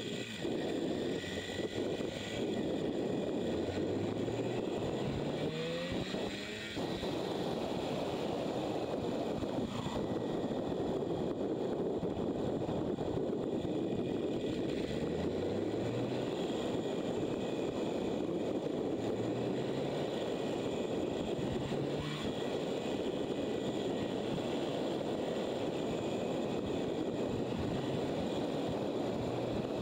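Motorcycle engine pulling up through its revs in short rising bursts, again and again, under a constant rush of wind and road noise on the microphone.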